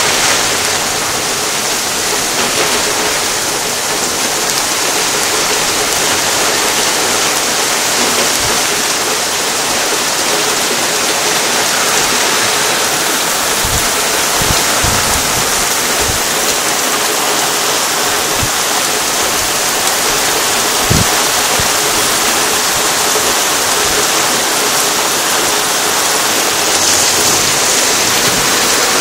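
Heavy rain of a summer storm pouring down: a steady, loud hiss, with a few brief low thumps about halfway through.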